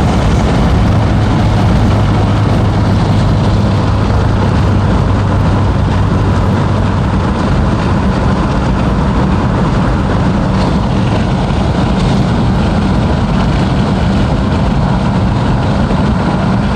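Mazdaspeed 6's 2.3-litre turbocharged four-cylinder engine and tyres on the move: a steady engine drone under even road noise, the drone's pitch stepping up about seven seconds in.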